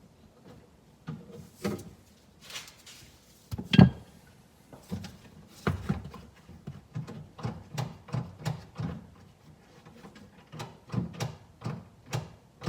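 The exterior door handle and latch of a BMW E53 X5 being worked repeatedly by hand, to check that the repaired handle carrier now operates the latch. A run of short clicks and clacks, with one loud clack about four seconds in and quicker repeated clicks in the second half.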